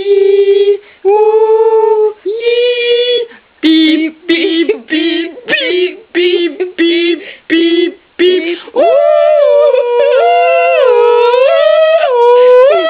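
A female voice singing wordless notes: a few held notes, then a quick string of short, clipped notes, then one long note that wavers up and down in pitch.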